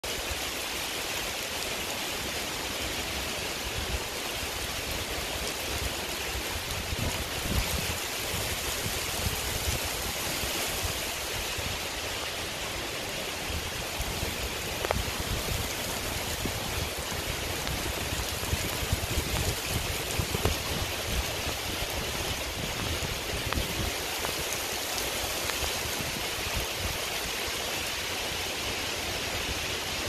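Heavy rain falling steadily on grass and tree leaves, an even hiss of countless drops, with a low, uneven wind rumble on the microphone.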